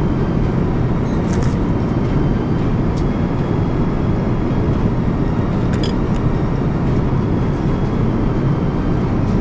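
Steady rumble and rush of airliner cabin noise inside an Airbus A350, from the engines and airflow in flight, with a few faint clicks.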